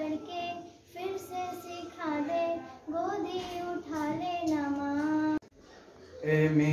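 A young girl singing a Hindi song solo, unaccompanied, with held notes that waver in pitch. Her singing breaks off abruptly about five seconds in. Near the end a boy's lower voice begins.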